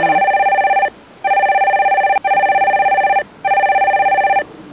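A phone ringing: a loud, trilling ringtone in about four bursts of roughly a second each, with short gaps between them.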